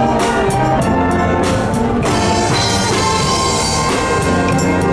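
School wind band playing live: brass instruments holding sustained notes over drum-kit and percussion strikes.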